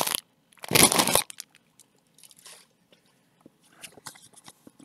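Foil trading-card pack wrapper being torn open and crumpled, with a loud crackling rip about a second in, then faint crinkling and small clicks of cards being handled.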